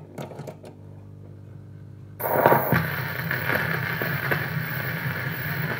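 Stylus of a Soviet 'Kontsertny' record player set down on a 78 rpm shellac disc: a few clicks from the tonearm over a low hum, then, about two seconds in, the needle drops into the lead-in groove and a loud surface hiss with regular ticks begins before the music starts.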